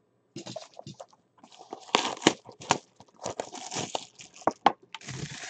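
Plastic shrink-wrap being torn and crinkled off a sealed trading-card box: a string of irregular crackles and rips, loudest about two seconds in.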